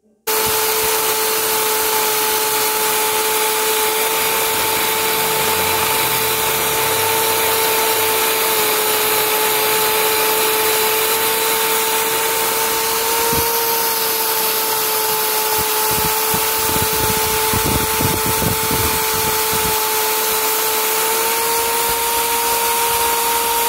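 Electric drill running at steady speed with a constant whine, its bit boring out and enlarging the bolt hole in a motorcycle exhaust's metal mounting bracket. Partway through there is a stretch of rapid low rattling as the bit works against the metal. The pitch rises slightly near the end.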